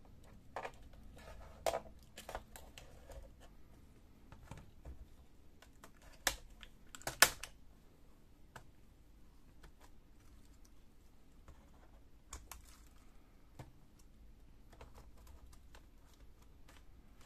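Scattered plastic clicks and snaps as a Lenovo G50-30 laptop keyboard is pried loose from its retaining clips with a plastic pry tool and lifted out. The two sharpest snaps come about six and seven seconds in.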